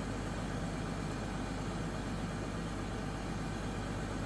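Schramm 450WS drill rig's engine running steadily at idle, an even low drone that does not change.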